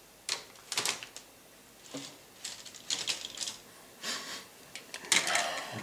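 Injection-moulded plastic model-kit sprues clicking and rattling as they are handled, in a string of short irregular clicks with rustling bursts. The loudest cluster comes about five seconds in, as a sprue is set down on the cutting mat.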